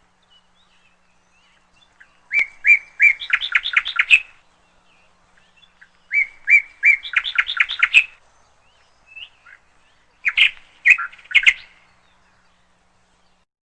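A songbird singing three phrases a few seconds apart; each begins with a few separate notes and speeds up into a quick trill.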